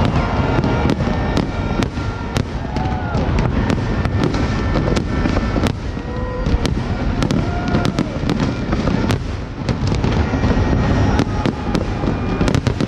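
Fireworks display: a dense, continuous barrage of sharp bangs and crackles over a deep, steady rumble.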